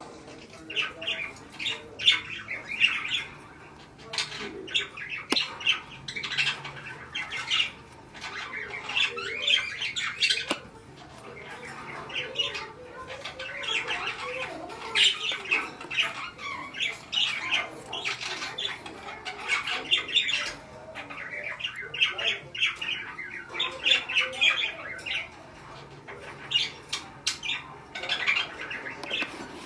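Budgerigar chattering and squawking in rapid, high chirpy runs, with short pauses every few seconds.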